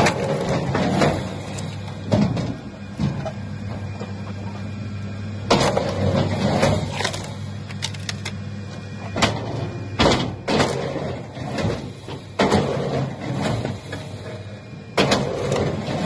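A heavy machine running with a steady low engine hum, over which come loud, irregular clatters and bangs every second or few seconds.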